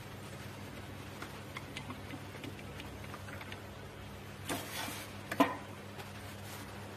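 Bowl-lift handwheel of an Anvil planetary mixer being cranked by hand: faint scattered ticks as it turns, then a short scrape and one sharp knock about five and a half seconds in, over a low steady hum.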